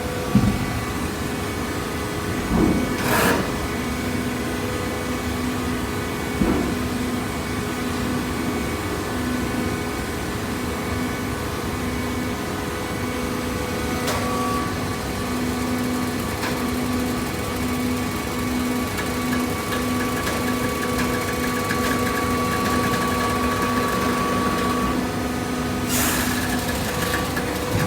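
Automatic horizontal hydraulic cardboard baler running: a steady hum from its hydraulic pump and motor, with a few knocks in the first seven seconds and a short rush of noise near the end.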